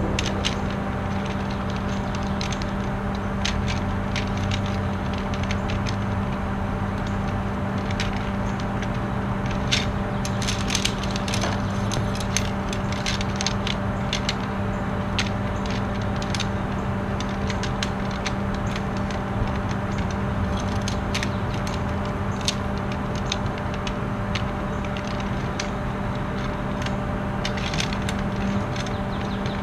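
Aluminium frame poles of a PakCanoe folding canoe clicking and clattering against each other as they are handled and packed into a bag, over a steady low hum.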